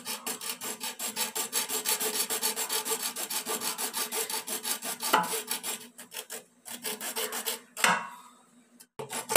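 Hacksaw cutting through a plastic toothbrush handle: fast, even back-and-forth strokes. About six seconds in the strokes thin out to a few, then stop shortly before the end as the blade goes through.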